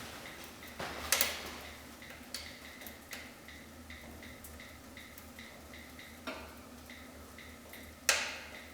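Wood fire crackling in a fireplace firebox: scattered sharp pops, the loudest about a second in and near the end. Underneath runs a faint, even ticking, about three ticks a second.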